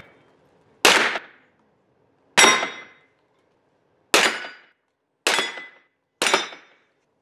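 Five pistol shots fired one at a time at uneven intervals of roughly one to one and a half seconds, each sharp and loud with a short metallic ring, echoing in an indoor range.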